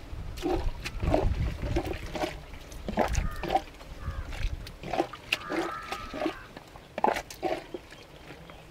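Plastic cups being scooped through thick fruit custard in a large aluminium pot. Repeated short wet squelches and slurps, irregular, about two a second.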